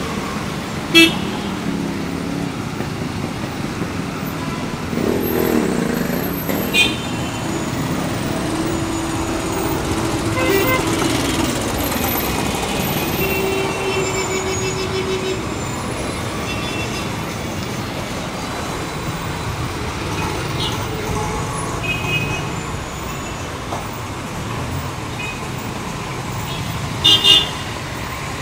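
Dense city road traffic running close by, with vehicle horns tooting now and then; the sharpest toots come about a second in and twice in quick succession near the end.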